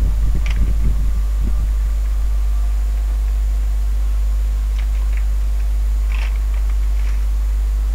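Steady low electrical hum, with soft low thumps in the first second and a half and a few faint clicks scattered through.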